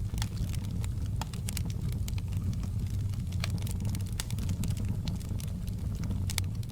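Wood fire crackling in a fireplace: a steady low rumble with many sharp, irregular pops and crackles.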